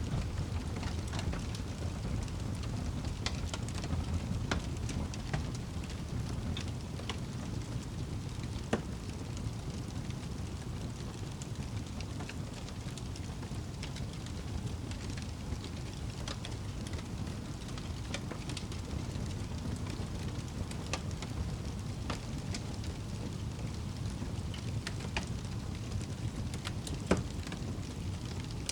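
Wood fire burning in a fireplace: a steady low rumble with scattered crackles, and two louder pops, one about a third of the way in and one near the end.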